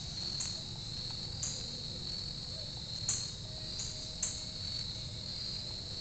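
Crickets trilling in a steady chorus, with short, higher chirps breaking in irregularly every second or so.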